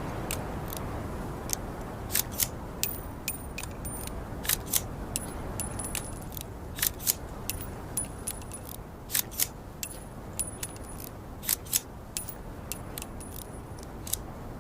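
Metallic handling sounds of a .44 revolver: a run of sharp clicks and light clinks at irregular intervals, some with a brief high ring, over a steady low rumble.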